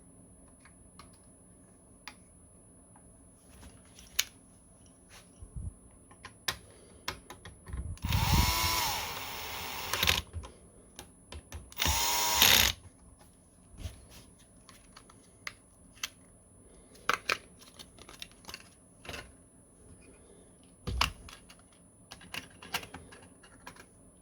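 A small power screwdriver running in two spells, about two seconds and then about one second, its motor pitch rising and falling as it drives screws. Light clicks and knocks of parts being handled come scattered throughout.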